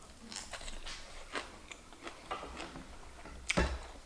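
Close-up crunching of seasoned soybean sprouts being chewed, a run of irregular short crisp clicks. Near the end comes one sharper knock with a low thump.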